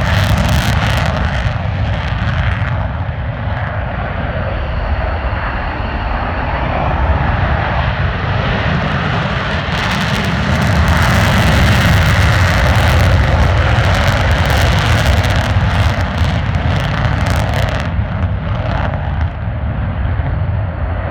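A military fighter jet flies low overhead. Its engine roar is loud throughout and grows to its loudest in the middle, with a crackling, ripping edge, before easing slightly toward the end.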